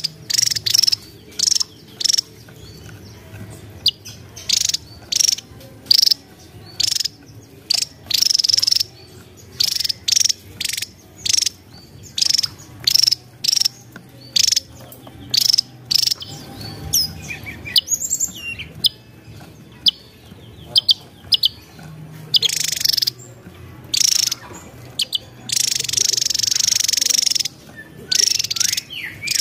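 Javan tesia singing: a fast string of short, high, sharp chirping notes, about two a second, with a longer buzzy note near the end.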